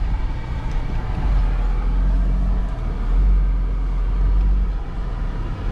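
Jeep engine running low and steady while crawling a rocky trail in low range, heard from inside the cab as a deep rumble that swells and eases a little.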